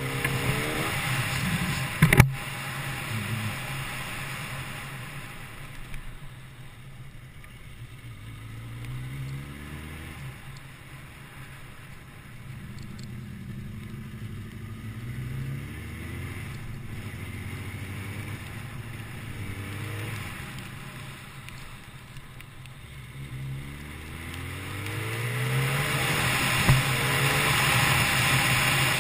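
Kawasaki ZX10R inline-four sportbike engine running under way, pulling up in pitch through the revs a few times and easing off between. A sharp knock about two seconds in, and wind rushing over the microphone as speed builds near the end.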